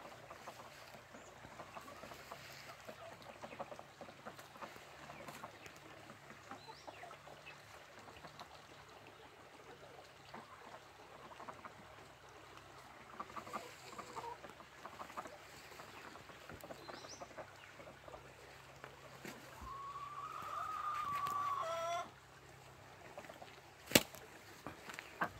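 Domestic ducks calling with soft, scattered quacks and chatter. Near the end comes one longer held call of about two seconds that cuts off suddenly, followed by a single sharp click.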